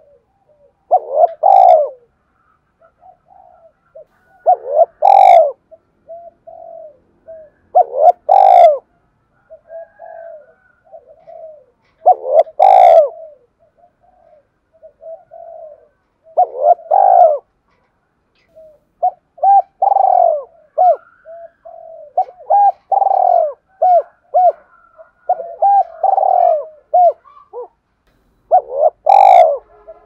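Spotted dove cooing in the driving 'thúc' style: a loud coo every three to four seconds with softer coos between, and a faster run of short coos in the second half.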